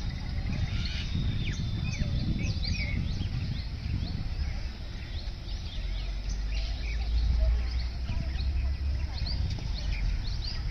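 Many birds chirping and calling in short, quick notes over a steady low rumble, which swells about seven seconds in.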